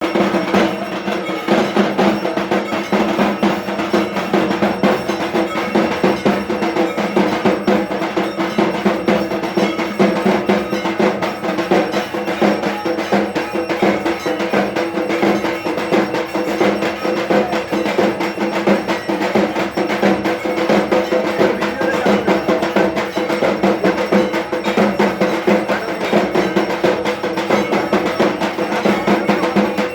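Fast, continuous temple percussion of a Durga Puja evening aarti: drums beaten in a rapid steady rhythm with metal bells ringing over them.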